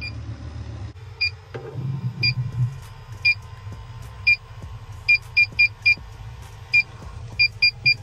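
Inficon TEK-Mate refrigerant leak detector beeping in short, high beeps. They come about once a second at first, then in quicker runs in the second half. Faster beeping is the detector's sign that it is sensing refrigerant as the probe nears the leak on the evaporator.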